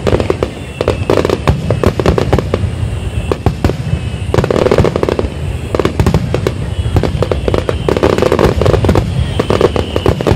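Aerial fireworks shells bursting in a dense barrage, many sharp reports in quick succession over a continuous low rumble.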